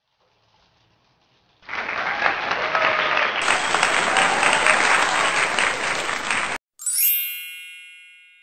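Applause sound effect, a crowd clapping, starting about a second and a half in and cutting off abruptly about five seconds later. A bright chime then rings out and fades.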